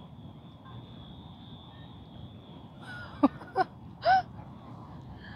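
Domestic geese giving a few short honks about three to four seconds in, over low outdoor background with a faint steady high-pitched tone in the first half.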